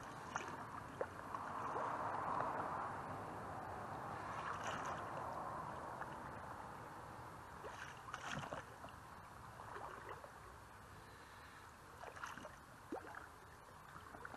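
A paddle swishing through the water beside an inflatable canoe, with a few drips and light knocks scattered through.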